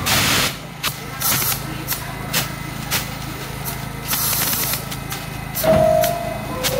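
A New York City subway train running slowly with a steady low hum, broken by repeated short bursts of hiss. Near the end comes a two-note falling tone.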